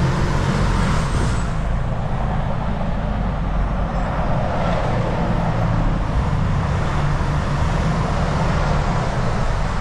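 Tractor-trailer cab interior while driving: a steady rumble of the diesel engine and road noise, with surrounding traffic.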